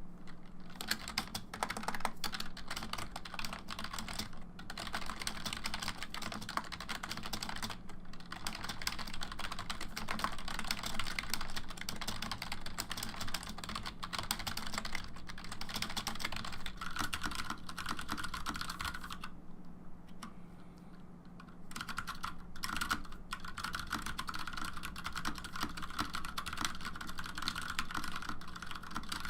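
Continuous fast typing on a Cooler Master Devastator I membrane keyboard, the keystrokes dense and even, with a short pause about two-thirds of the way through. A steady low hum runs underneath.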